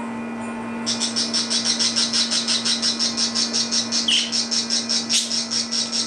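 Budgerigars chirping in a rapid, even run of high chirps, about five a second, starting about a second in, with one short separate chirp near the middle. A steady low hum runs underneath.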